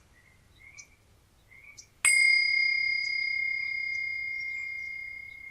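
A meditation bell struck once about two seconds in, ringing with a clear high tone that fades slowly, over faint chirping.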